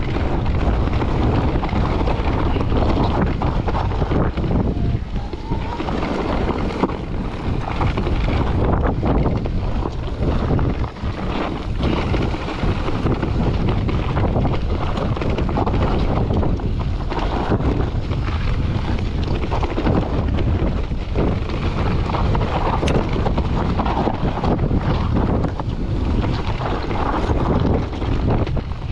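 Wind buffeting the microphone while riding a mountain bike downhill, with the tyres rolling and crunching over a rocky dirt trail and the bike rattling over bumps.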